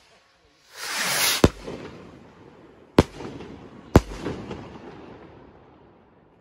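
Helios 'Austria Four' ball-headed sky rockets bursting in the air. One more rocket rushes up about a second in and bursts with a sharp bang, then two more bangs follow, about three and four seconds in. Each bang echoes and fades.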